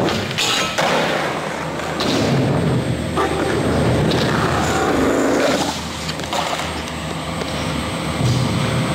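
Skateboard wheels rolling across a skatepark floor, with several sharp clacks and thuds of boards and landings.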